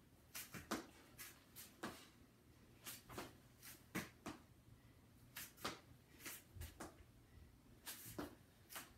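Faint scuffs, rustles and breaths of a person doing a crawling plank exercise on foam floor mats, hands and feet stepping in and out. Many short, soft sounds come at irregular intervals.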